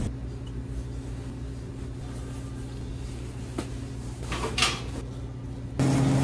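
Steady low machine hum, with a single sharp click a little past the middle and a brief clatter of knocks shortly after.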